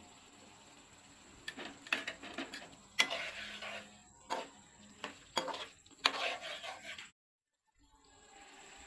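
Utensils clinking and scraping against a cooking pot: a run of sharp knocks and scrapes, the loudest about three seconds in, stopping abruptly about seven seconds in.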